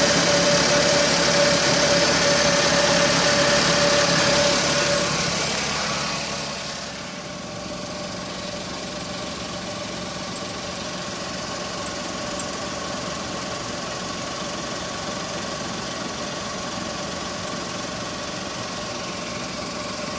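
Suzuki Wagon R Stingray MH44S's 660 cc three-cylinder engine running at idle, with a loud steady whine for the first five seconds or so; about six seconds in the sound drops to a quieter, steady idle.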